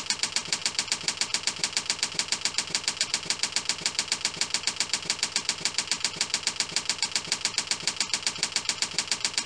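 Typing sound effect: fast, evenly spaced key clicks, about eight a second, in a steady run.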